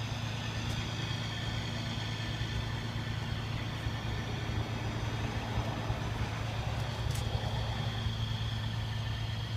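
Heavy truck engine idling steadily, a low even hum with a faint steady high whine over it.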